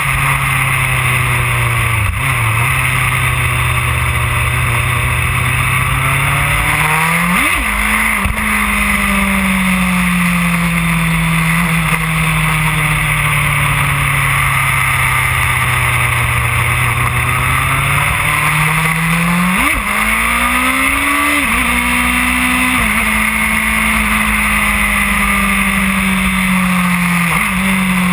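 2008 Yamaha R1's inline-four engine running at road speed, its pitch sinking and rising slowly with the throttle and jumping sharply a few times. Wind rushes steadily over the microphone throughout.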